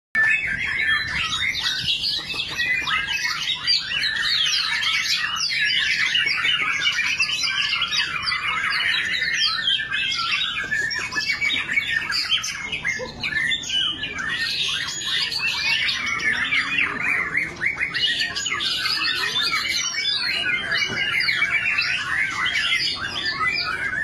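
Several caged songbirds, white-rumped shamas (murai batu) among them, singing at once: a dense, unbroken chorus of fast chirps, trills and whistles.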